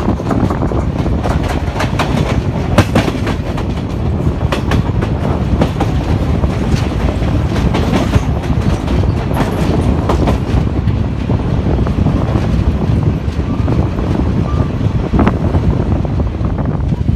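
Passenger train running at speed, heard from an open coach window: a steady rumble of wheels on rails with irregular clicks and knocks from rail joints.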